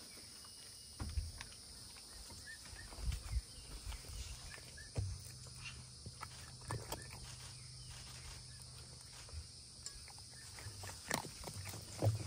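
A fox chewing a raw turkey neck: irregular cracks and crunches as the bones break, with soft low thumps in between and a few sharper cracks near the end.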